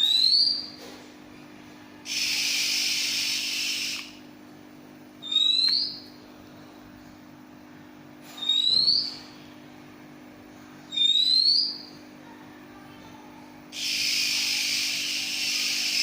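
Oriental magpie-robin (kacer) calling: four short, clear upward-sliding whistles a few seconds apart, with two longer harsh hissing stretches, one about two seconds in and one near the end. A steady low hum runs underneath.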